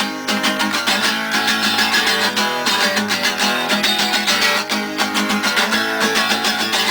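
Guitar strummed in a fast, even rhythm with no singing: the instrumental opening of a folk-punk song played live.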